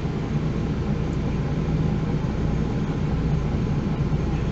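MAN NG 313 articulated city bus's diesel engine running steadily, a low drone with even background noise, heard from inside the bus.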